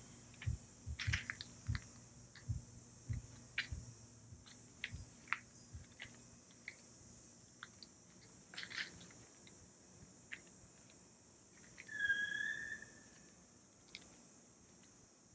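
Faint background with a steady high-pitched hiss. Low thumps come about twice a second in the first few seconds, scattered clicks run throughout, and one short chirp comes about twelve seconds in.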